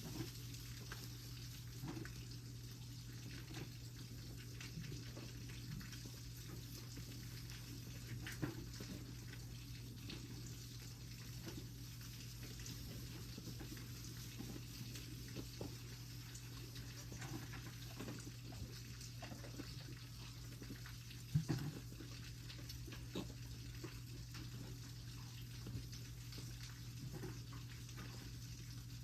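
Goat kid suckling milk: faint wet sucking and slurping over a steady low hum, with small scattered ticks and one louder knock about 21 seconds in.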